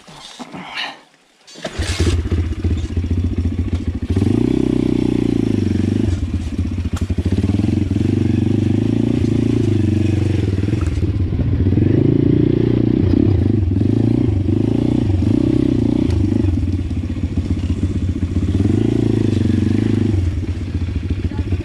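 Pitgang 140 XD pit bike's single-cylinder four-stroke engine, coming in suddenly about two seconds in and then running loud, with the revs rising and falling over and over as the bike is ridden.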